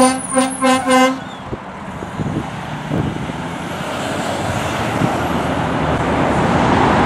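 Fire engine's horn sounding four quick blasts in the first second, then the truck's engine and road traffic noise.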